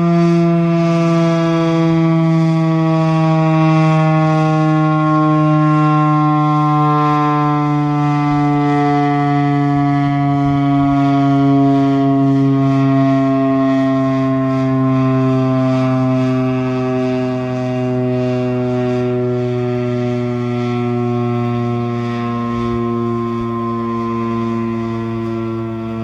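Federal Signal Thunderbeam RSH-10 rotating outdoor warning siren sounding one steady, loud tone. Its pitch falls slowly and evenly throughout as the siren winds down.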